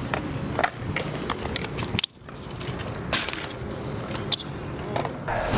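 BMX bike rolling on hard ground, tyre noise with scattered clicks and knocks from the bike, cut off briefly about two seconds in.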